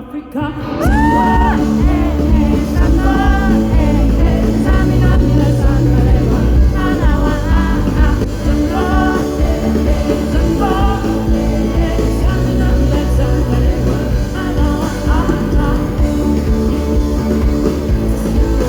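Loud live band music with heavy bass and drums, voices singing over it, heard from within the audience.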